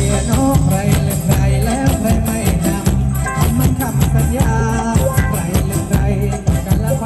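Loud live band music for ramwong dancing: a steady, quick beat of drums and percussion under pitched melody instruments.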